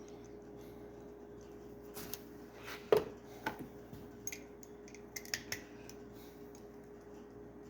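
A handful of light metallic clicks and clinks from a Milwaukee 1/4-inch-drive chrome socket and extension being handled, the loudest about three seconds in, over a faint steady hum. The socket joint has a lot of play.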